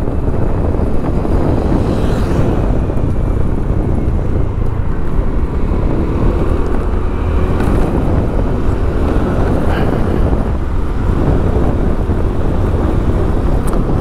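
Steady motor-vehicle and road noise, a dense low rumble with a faint engine tone wavering through the middle and no single standout event.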